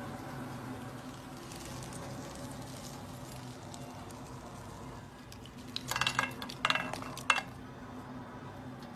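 Kitchen sounds: a steady low hum with a faint hiss, then a quick cluster of clinks from dishes and utensils a little after halfway through.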